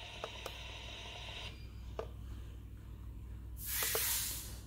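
Faint hiss from the US249 clock radio's FM reception, cut off about one and a half seconds in as the AM/FM button is held to switch the radio off, with a few light plastic button clicks. A short, louder hiss comes near the end.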